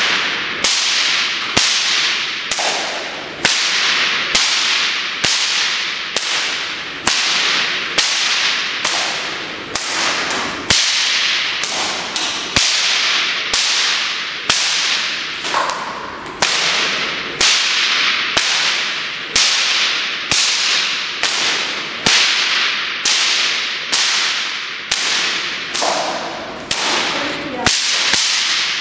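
Bullwhip cracked over and over in a freestyle routine: a steady run of sharp cracks, about three every two seconds, each one echoing in a large hall.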